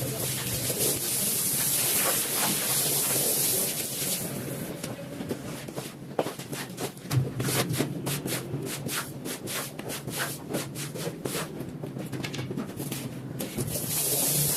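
Rug being washed: a steady hiss of spraying for the first few seconds, then a run of short rubbing strokes on the wet pile, about three a second, over a steady low machine hum.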